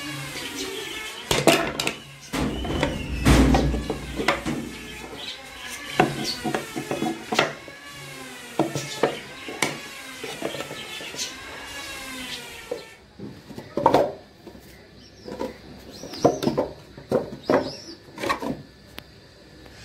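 Wooden tool box parts knocking and clattering as thin board dividers are set into the compartments and the box is shifted about: a string of sharp, irregular knocks.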